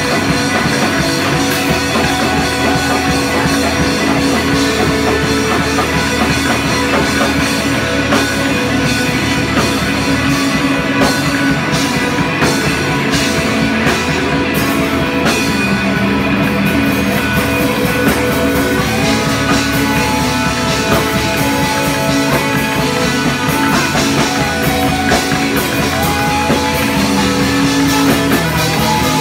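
Rock music with electric guitar and drum kit, loud and steady throughout.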